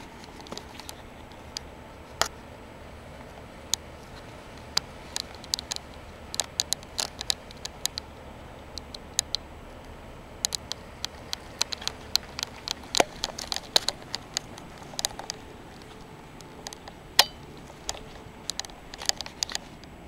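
Steady fan noise from a running LG outdoor HVAC unit, overlaid by many irregular sharp clicks and crackles, which are the loudest sounds and come thickest in the second half.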